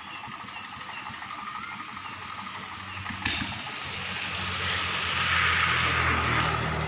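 Distant fairground din: a steady hiss with faint high chirps. In the second half the low hum of an engine swells louder, and there is a single click about three seconds in.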